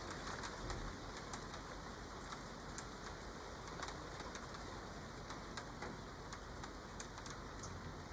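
Outdoor ambience: a steady hiss with irregular light ticks and patters, several a second, starting abruptly.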